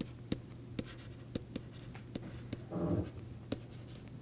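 Stylus tapping and scratching on a pen tablet while handwriting: a string of irregular light clicks over a faint steady hum, with a brief voiced sound about three seconds in.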